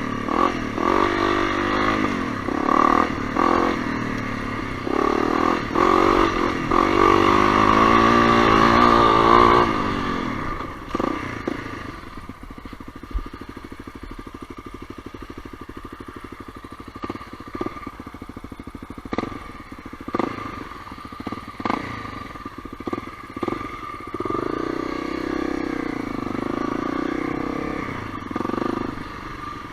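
Honda CRF250L's single-cylinder engine under way on a dirt trail. It revs up and down through the first ten seconds, then runs quieter at low speed and picks up again near the end. Scattered knocks and clatter come from the bike over rough ground.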